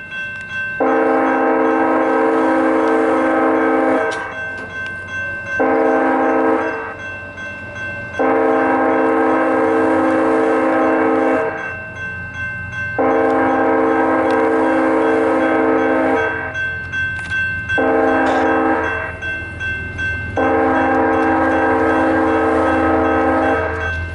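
Union Pacific diesel locomotive's air horn sounding a chord in repeated long and short blasts for a road crossing: four long blasts and two short ones. A low rumble from the approaching locomotive grows toward the end.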